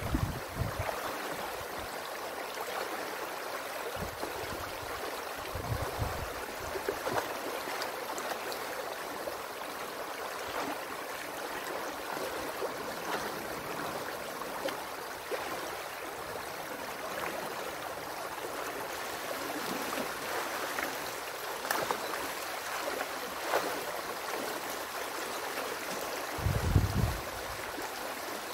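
Stream water rushing steadily through a breached beaver dam, with a few short low rumbles, the loudest near the end.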